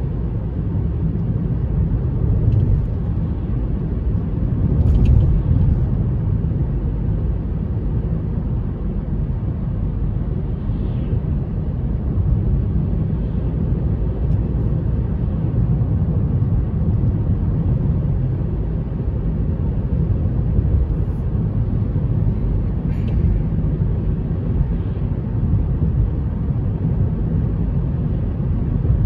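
Road noise inside a moving car's cabin: a steady low rumble of tyres and engine, swelling slightly about five seconds in, with a few faint clicks.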